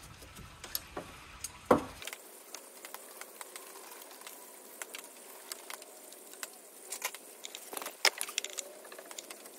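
Metal spanners clicking and clinking against engine bolts in a car's engine bay, in scattered irregular ticks, with two louder clanks, one about two seconds in and one about eight seconds in.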